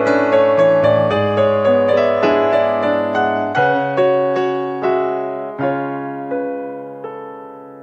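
Background piano music: struck notes and chords that ring and fade, coming more slowly and dying away near the end.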